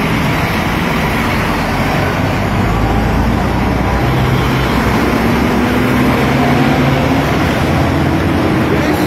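Steady road traffic noise of cars and trucks, with a low engine hum underneath.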